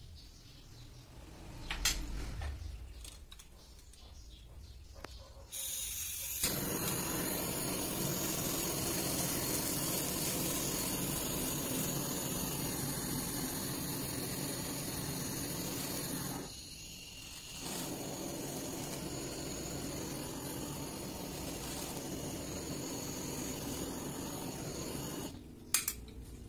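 Handheld butane flame gun burning with a steady hiss as it toasts bread in a grill pan; it starts about six seconds in, cuts out for about a second near the middle and is relit, then stops shortly before the end. A single sharp clink sounds about two seconds in, before the torch starts.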